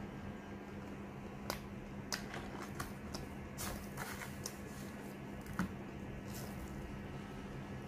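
Eating sounds of sweet potato being chewed and bitten: scattered wet mouth clicks and smacks, a few per second at most, over a steady low hum.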